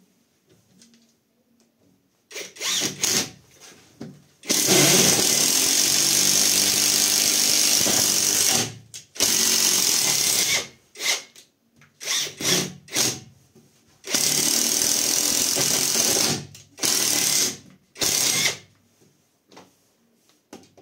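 Catpower 4226 cordless impact wrench driving a long wood roof screw into a log. It runs in stop-start bursts: a few short ones about two seconds in, then a steady run of about four seconds, then more short bursts and another run of about two seconds, with brief pauses between them.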